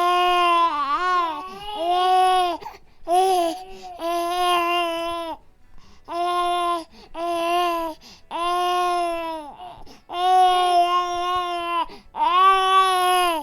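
Infant crying in about ten wails, each lasting half a second to two seconds, with short gaps for breath between them. The pitch mostly holds steady within each wail, and it wavers up and down about a second in.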